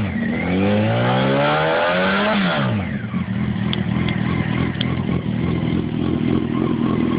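Honda 919's inline-four engine through CBR900RR headers and a Scorpion carbon fiber Street Extreme exhaust can, revved once with the bike standing: the revs climb for about two and a half seconds, drop back, and settle into a steady idle.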